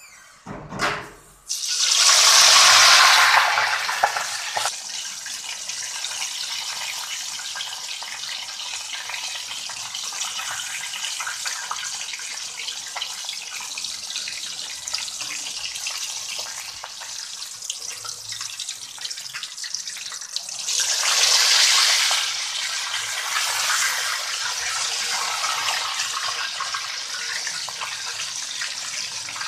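Whole chicken sizzling in hot oil in a wok: a loud surge of sizzling as it goes into the oil, then a steady frying hiss. The sizzling surges loud again about two-thirds of the way through, when the chicken is turned over.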